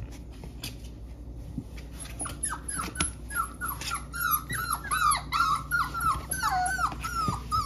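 Young puppies whimpering and whining in short, high-pitched cries, several a second, starting about two seconds in and growing busier towards the end, after a few light clicks. These are stressed cries of four-week-old pups put on a slippery hard floor for the first time.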